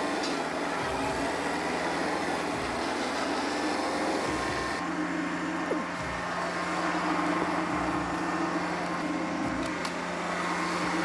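Stihl MS 881 chainsaw with a 60-inch bar running steadily at high revs, cutting through a large log.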